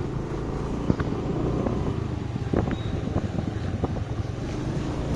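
Steady running noise of a vehicle being driven on the road: a low engine hum with road and wind rumble, and a few faint ticks.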